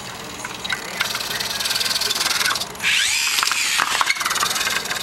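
Electric drive motors and gearing of an RC rubber-tracked Caterpillar loader whining as it drives and manoeuvres, the whine rising and falling in pitch about halfway through, with a few sharp clicks.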